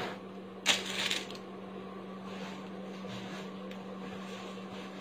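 Packaged costume jewellery, pieces on cardboard cards and in plastic packets, slid and shifted by hand on a tabletop: a brief rustling clatter about a second in, then only a steady low hum.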